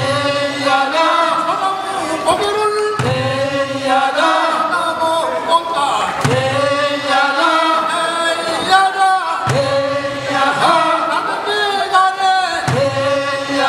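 Group of men singing a Korean traditional fishermen's work song in unison chant, in repeated phrases that start about every three seconds.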